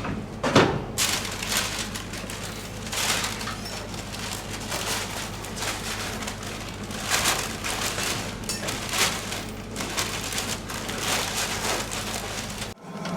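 Flour mill machinery running: a steady low hum under irregular rustling and crackling.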